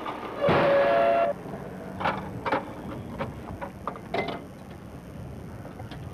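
A short horn blast about half a second in: two steady tones held for under a second. After it come a few sharp knocks and clinks.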